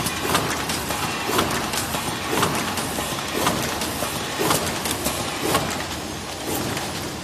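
Automatic cartoning machine running, inserting candy pouches into boxes: a steady mechanical clatter with a louder clack about once a second as the machine cycles.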